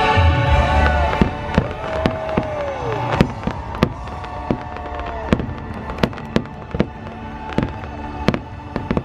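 Fireworks finale: a rapid string of sharp bangs and pops, about two a second, with heavy low thumps in the first second and a few falling whistles between the bursts. Underneath, the choral show soundtrack fades out in the first second.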